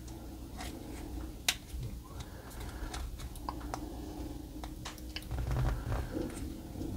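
Small plastic clicks and taps of a Legends-scale Transformers figure, the Magic Square MS-B54 Tornado, being handled as its parts are pegged together during transformation, with one sharp click about a second and a half in.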